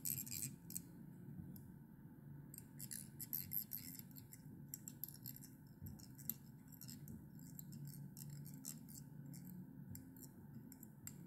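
Faint, irregular clicks and rasps of orange 8/0 tying thread wrapped around a fly hook's shank with a bobbin holder, binding down flat pearl tinsel, over a low steady hum.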